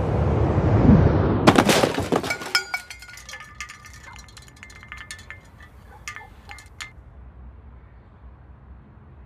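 A rushing rumble builds up and ends in a crash about a second and a half in, with glass shattering. Shards then tinkle and clink as they fall and settle over the next few seconds, thinning out.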